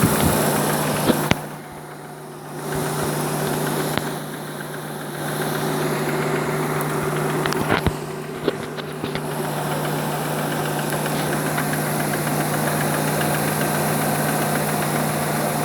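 Audi 6.0 W12 engine idling steadily after a cold start, an even hum with a constant low tone. A few sharp clicks stand out, and the level drops twice for about a second each.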